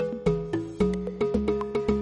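Background music: quick plucked notes over a bass line on a steady beat, about four notes a second.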